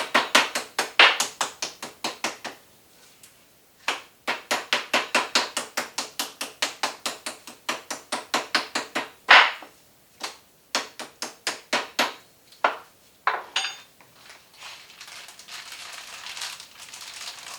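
Toothed meat-tenderizing mallet pounding a seasoned steak in fast runs of blows, about five a second, with short pauses between runs. The pounding stops a few seconds before the end.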